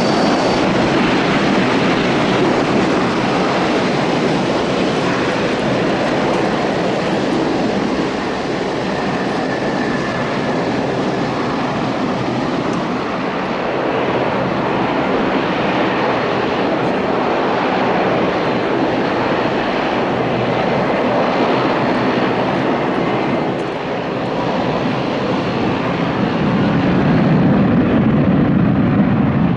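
Jet airliner engines running, a loud, steady rushing noise with no distinct tones, swelling in the low end near the end.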